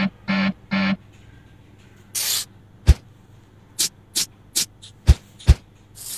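A string of short, separate sounds, most likely added sound effects: three short pitched tones in the first second, a brief whoosh about two seconds in, then a run of sharp clicks and low thumps, and another whoosh starting at the very end.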